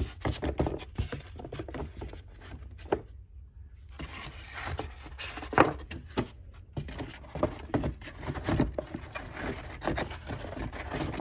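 Cardboard egg flats being lowered and stacked into a clear plastic tub by hand: repeated scraping and rubbing of pulp cardboard against cardboard and plastic, with light knocks and one louder knock a little past halfway.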